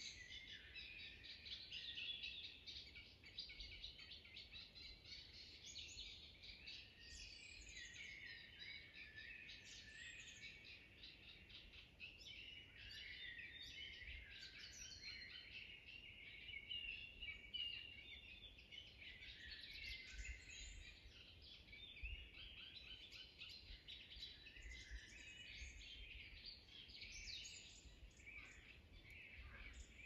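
Several songbirds singing at once, a continuous mix of chirps and warbled phrases, faint, over a low rumble.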